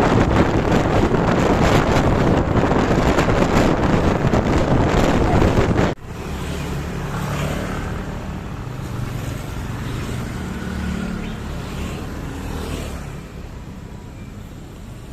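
Heavy wind buffeting the microphone for about six seconds, then a sudden cut to a quieter vehicle engine running with road traffic.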